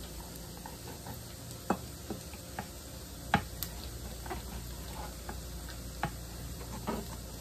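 Scattered light knocks and taps of a drinking glass pressed down on corn tortillas on a wooden cutting board, as rounds are cut out and pulled free, with the sharpest knock about halfway through. A steady low hum runs underneath.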